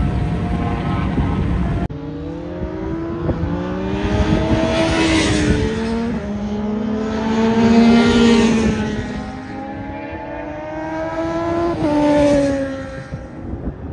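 A Honda sport bike's engine as it pulls away, then racing motorcycles accelerating hard down a track straight. The engine pitch climbs through each gear and falls back at every upshift, and the bikes pass loudest about 5, 8 and 12 seconds in.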